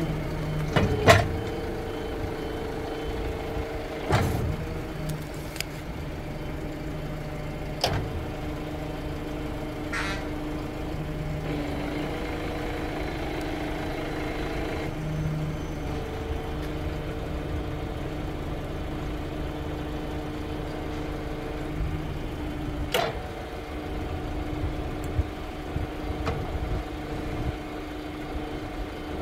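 Kia Bongo III tow truck's diesel engine running at idle with a steady hum. Several sharp knocks cut through it, the loudest about a second in and others around 4, 8, 10 and 23 seconds.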